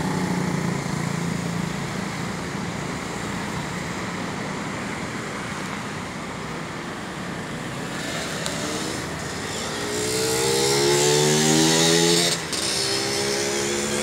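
Road traffic with a passing motor vehicle: an engine hum at first, then from about eight seconds in an engine accelerating, its pitch rising and growing loudest, before dropping sharply a little after twelve seconds and running on at a lower pitch.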